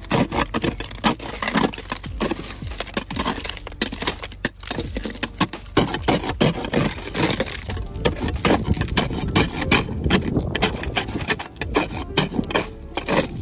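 Plastic kitchen spatula scraping thick ice off a car windshield in rapid, irregular strokes, the ice cracking and breaking away in sheets.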